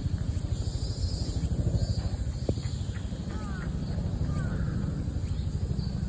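Outdoor ambience dominated by a steady low rumble, with a few faint, short sliding bird chirps a little past the middle.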